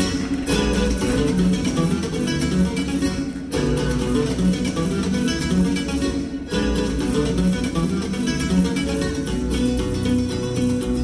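Latin American dance music led by strummed and plucked guitar-like strings, with a steady rhythm and two very short breaks between phrases, about three and a half and six and a half seconds in.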